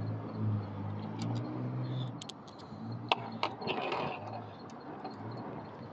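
Small handling sounds of hand tools and wire on a workbench: several sharp clicks, typical of cutting and handling a length of ignition ground wire, and a brief rustle near the middle, over a low steady hum that dies away within the first two seconds.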